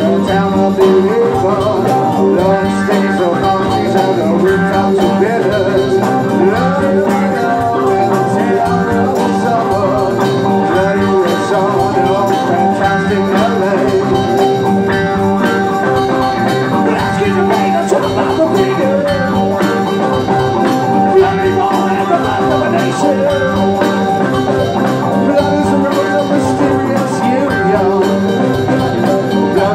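Live rock band playing loud and without a break: electric guitars, drum kit and keyboard in an instrumental stretch with no lead vocal.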